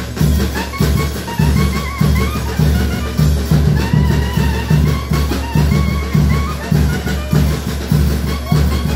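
Festive dance music with a steady drum beat, about two beats a second, and a wavering high melody over it.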